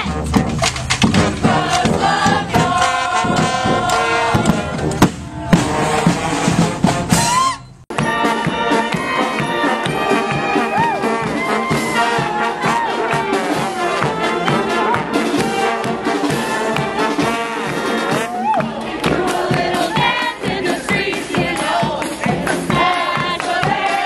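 Street brass band playing: trumpets and trombones over drums and cymbals, with crowd voices around it. The sound drops out briefly about 8 seconds in, and a different recording of the band playing follows.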